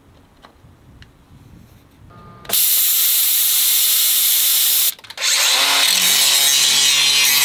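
After a quiet start, a Hypertherm 45 plasma cutter hisses steadily for about two seconds as it cuts lightening holes in a steel plate, then stops abruptly. After a brief gap an angle grinder runs against the steel, a steady motor hum under a loud grinding hiss.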